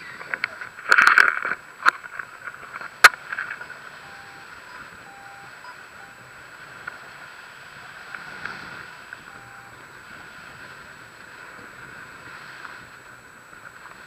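Steady rush of wind over a pole-mounted action camera flying under a tandem paraglider, with a few sharp knocks and rattles from the camera pole in the first three seconds, the loudest about three seconds in.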